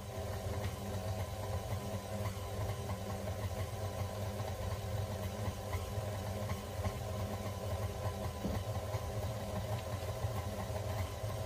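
KitchenAid stand mixer motor running steadily, its dough hook turning a wholemeal bread mix as water is added.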